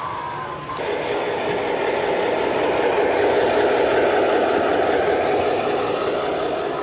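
Model train rolling past close by: a steady rumble of wheels on the track and the locomotive's motor. It starts abruptly about a second in, is loudest midway and eases slightly near the end.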